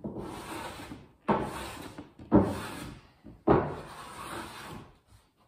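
Four strokes of a hand tool worked against wood furring strips overhead, about one a second. Each begins sharply and fades over about a second.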